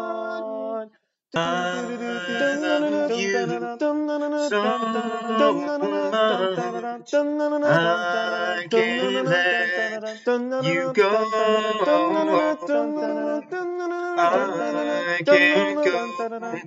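A song with singing voices. A held chord stops about a second in, and after a brief silent gap the singing and music pick up again.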